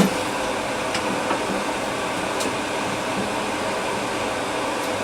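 Steady fan-like hiss and hum of room noise, with a few faint clicks about one, two and a half and five seconds in.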